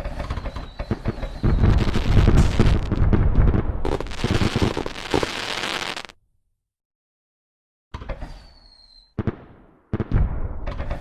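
Firework sound effect: a dense run of bangs and crackling for about six seconds that cuts off suddenly into silence. After a short gap, a new run of separate bangs begins, one with a brief whistle.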